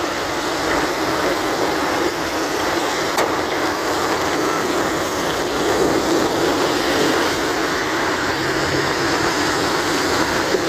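Steady hiss of rain and car tyres on a wet road as traffic passes.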